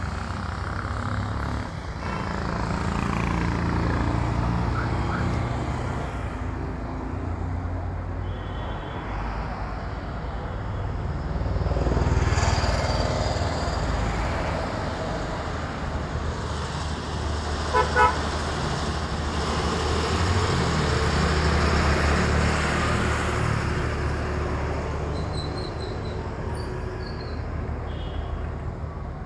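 Road traffic on a mountain road: vehicle engines swelling and fading as they pass, with a vehicle horn tooting twice in quick succession about two-thirds of the way through.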